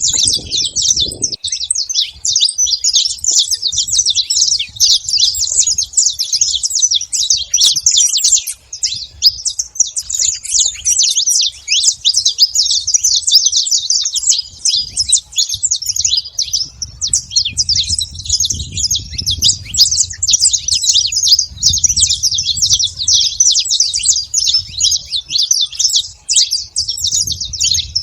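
A flock of many saffron finches chirping and calling without a break, their voices overlapping into a dense, high chatter.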